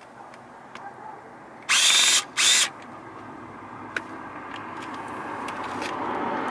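Cordless power drill run in two short bursts of about half a second each, driving screws in or out.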